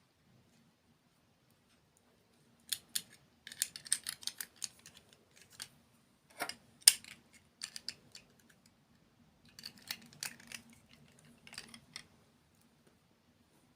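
Close-miked eating sounds: crisp crunches and clicks as a dessert is bitten and chewed, in irregular clusters with short pauses between.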